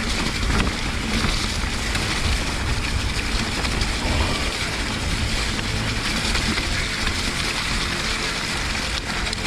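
Mountain bike rolling over a wet, muddy track: a steady rumble of tyres on wet ground with a hiss of spray and wind on the microphone.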